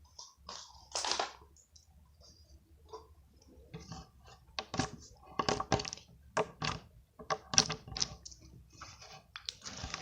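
Glitter slime being squeezed and stretched by hand, giving irregular sticky clicks and pops that come thicker from about halfway through.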